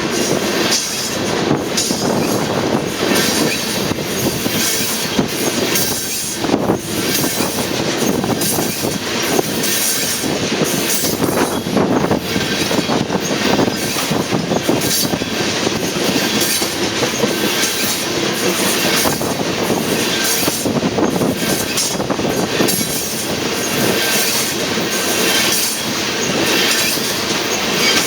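Tank cars of a loaded crude oil freight train rolling past: a steady rumble and clatter of steel wheels on the rails, with faint thin wheel squeal.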